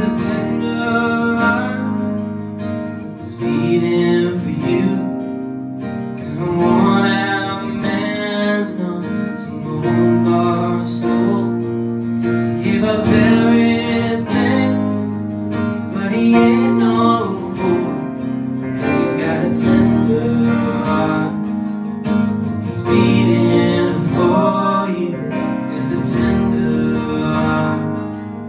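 Live music: two acoustic guitars strumming a country song, with voices singing at times.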